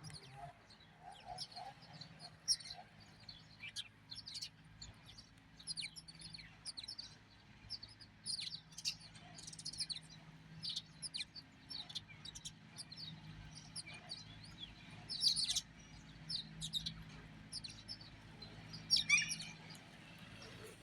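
Small birds chirping: many short, high chirps, often several at once, come at irregular intervals throughout. A faint steady low hum runs underneath.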